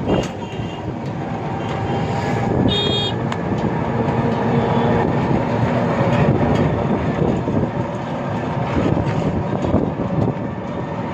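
Running engine and road noise of a moving auto-rickshaw, heard from on board. A brief high-pitched horn beep sounds about three seconds in.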